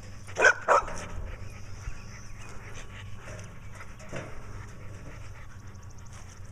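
Dog panting, with two short loud barks about half a second in and a fainter bark around four seconds in.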